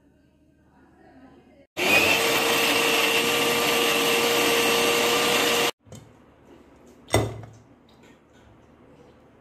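Mixer grinder (mixie) motor running with its steel jar, grinding grated coconut, green chillies, garlic and spices into a paste. It runs steadily for about four seconds from about two seconds in, then cuts off abruptly. A single sharp thump follows about a second and a half later.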